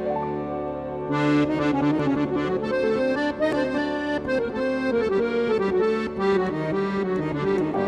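Background music: a melody of held notes, with a fuller accompaniment of quicker, brighter notes joining about a second in.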